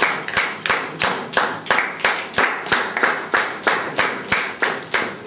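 A small group of people clapping in steady unison, about three claps a second, each clap echoing briefly in a small room.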